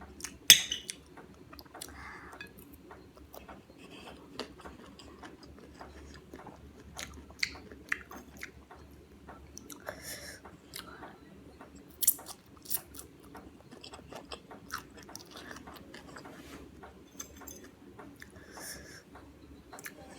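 Close-miked chewing and mouth sounds of someone eating Indo-Chinese food, with many short sharp clicks and smacks scattered through, the loudest about half a second in and again at about 12 seconds.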